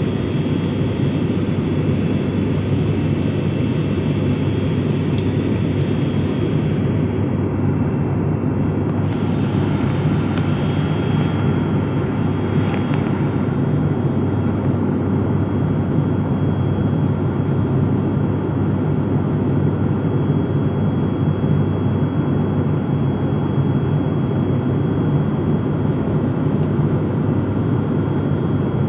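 Steady drone of an airliner cabin in flight: engine hum and airflow noise, unchanging throughout.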